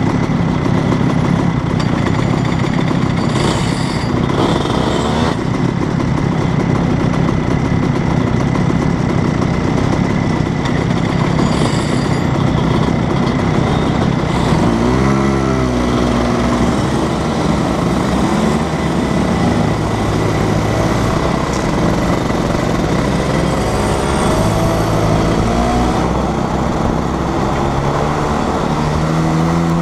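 Racing kart engine idling at close range, then revving up about halfway through as the kart pulls away, its pitch rising and falling with speed after that; other karts' engines run around it.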